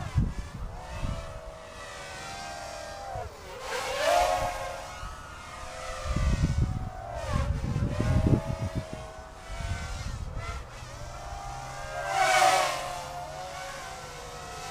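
Mini hexacopter's six RCX 1306 3100kv brushless motors spinning 4045 props on 3S, a whine whose pitch rises and falls with throttle. It swells loudest about four seconds in and again near the end, with bursts of low rumble midway through.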